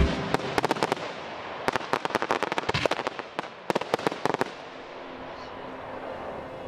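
Fireworks going off: a rapid, uneven run of sharp pops and cracks from bursting shells, thinning out after about four and a half seconds.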